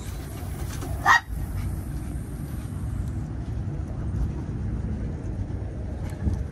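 A dog gives one short, sharp yip about a second in, over a steady low rumble.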